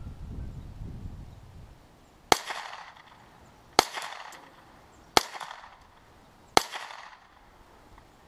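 Four shots from a Ruger 10/22 .22 rimfire semi-automatic rifle, fired at an even pace about a second and a half apart. Each is a sharp crack trailing off in a short echo.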